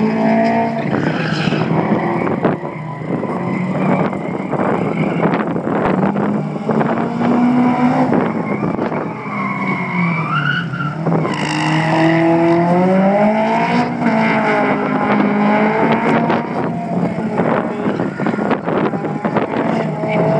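Subaru Impreza and Honda Civic race car engines being driven hard, their notes climbing and falling over and over through the run, with tyres squealing at times.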